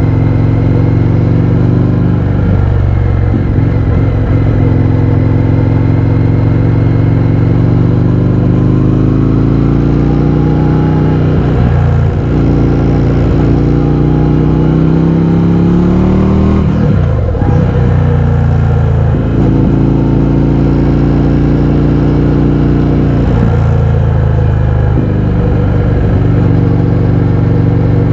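Indian FTR 1200's V-twin engine through an Akrapovič exhaust with the baffles removed, loud, under way and accelerating. The pitch climbs over several seconds at a time and breaks at several points (around 2, 12, 17, 19 and 24 seconds in), as at gear changes.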